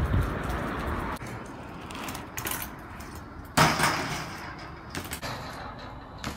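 BMX bike rolling over pavement with a steady rushing noise, then a single loud, sharp clack of the bike striking a brick ledge about three and a half seconds in, followed by a few lighter knocks.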